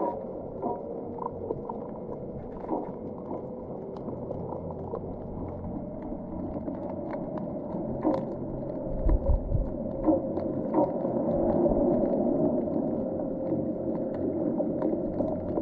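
Underwater sound picked up by a camera held below the surface: muffled water noise with a faint steady hum, scattered clicks and crackles throughout, and a few low thumps about nine seconds in.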